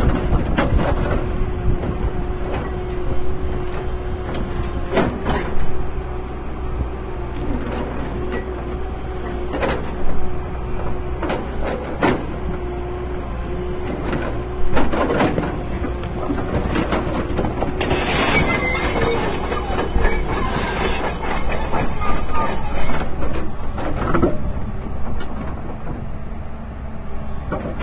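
Excavator working a hydraulic rock breaker: the engine runs with a steady whine, broken by irregular heavy metallic knocks. For about five seconds past the middle there is a high metallic screech.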